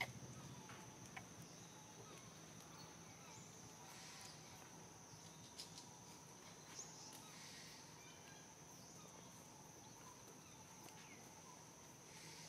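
Near silence, outdoor ambience with a faint steady high-pitched insect drone, cricket or cicada-like, and a few faint ticks.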